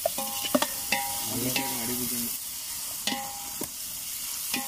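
Sliced onions and ginger-garlic paste sizzling in oil in a large aluminium pot. A perforated metal ladle stirs them, scraping and clinking against the pot several times, and each knock sets the pot ringing briefly.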